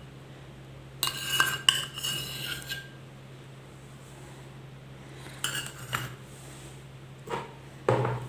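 A metal spoon clinking and scraping against a condensed milk tin and a plastic mixer jar while condensed milk is scooped in: a run of clinks with a brief ringing about a second in, then a few single knocks near the end.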